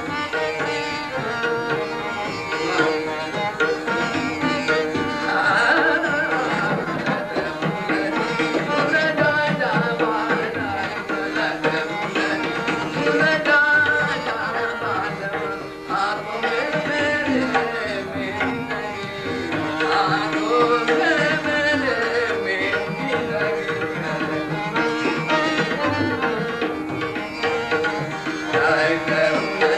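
Hindustani classical vocal with tabla and harmonium accompaniment: the tabla keeps a steady rhythmic pattern under the harmonium's sustained notes and the singer's gliding melodic lines.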